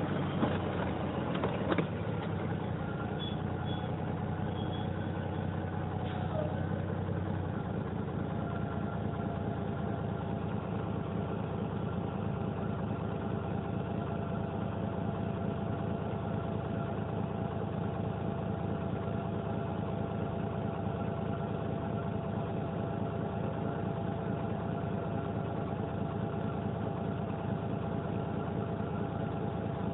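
Cummins LTA10-B252 turbocharged inline-six diesel of a Dennis Dragon 12 m double-decker bus running at a steady idle, its pitch unchanging. There is a short click about two seconds in.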